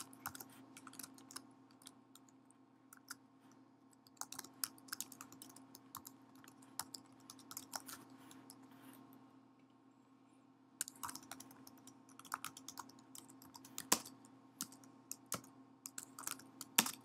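Typing on a computer keyboard: runs of quick, irregular keystroke clicks with a lull of about two seconds past the middle, over a faint steady hum.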